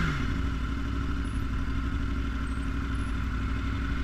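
Sport motorcycle engines idling steadily, a low even running sound with no revving.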